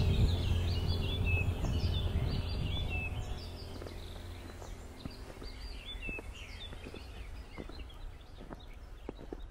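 Many small birds chirping, a busy chorus of short overlapping calls that thins in the middle and picks up again about six seconds in. A low steady hum fades out about three seconds in, after which irregular soft steps in snow come through under the birdsong.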